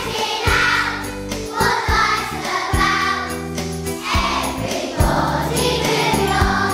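A group of young children singing in unison over an instrumental accompaniment with held chords and a regular beat.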